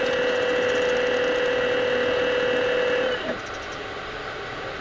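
Electric motor of a radio-controlled model Hitachi 870 excavator whining at a steady pitch, cutting off about three seconds in.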